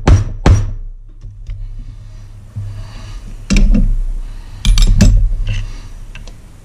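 Two last hammer blows on a screwdriver driving the oil seal and ball bearing out of an outboard's lower crankshaft end cap. After a short pause come loud metal clanks and clinks as the hammer is set down and a long screwdriver is worked inside the end cap.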